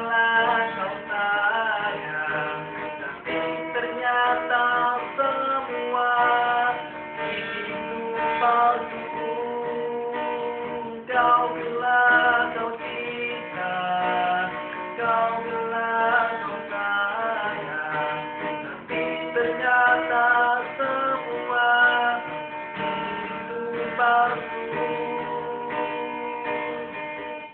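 Acoustic song: guitar playing steadily with a wavering melody line carried above it, without clear sung words.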